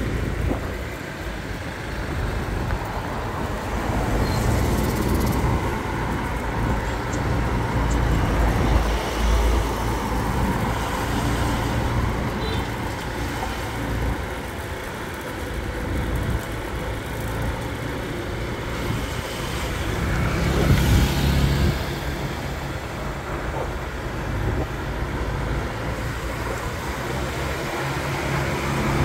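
Road noise from a vehicle driving along a wet road: a steady low rumble with tyre hiss, swelling louder for a moment about twenty seconds in, and a steady low hum coming in over the last few seconds.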